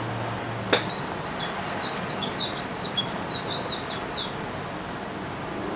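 A titanium-faced Majesty Prestigio XI driver strikes a golf ball once with a sharp crack less than a second in. A songbird then sings a quick run of short, high chirps for about three and a half seconds.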